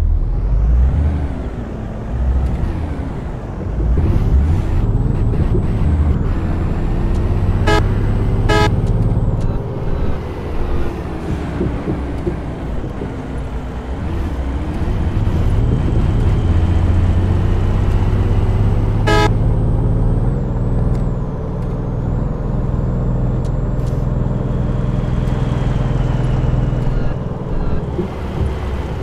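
Motor vehicle driving on a road: a steady engine hum whose pitch slowly rises and falls with speed, over continuous road noise. Two short sharp clicks come about eight seconds in and another near twenty seconds.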